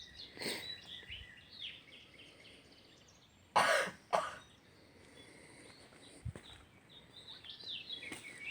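A person coughs twice, a longer cough about three and a half seconds in and a short one just after, with small birds chirping in the background.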